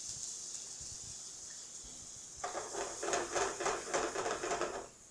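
Heavy cream sizzling as it hits a hot frying pan of beef drippings on a gas burner. About halfway through, a louder rattling stretch as the pan is moved on the burner, stopping just before the end.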